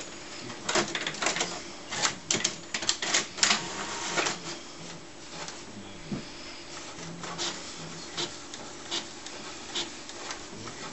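HP Photosmart C5280 inkjet printer printing: the print carriage shuttles across while the mechanism clicks and clatters, busily in the first four seconds, then with single clicks about once a second over a low steady motor hum.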